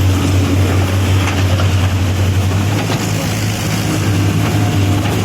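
CASE backhoe loader's diesel engine running steadily, a low hum. The lowest part of the hum changes a little under halfway through.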